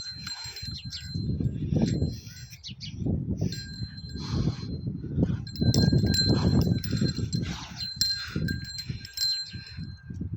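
Small bells jingling and ringing, over low rumbling bursts that swell and fade.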